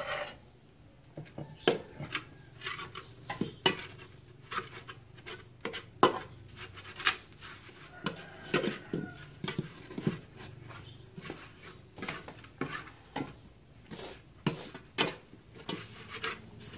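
A metal ladle scraping and clinking against the bottom of an aluminium pot, stirring a dry spice mixture being toasted in the nearly empty pot: irregular scrapes and knocks, a few each second.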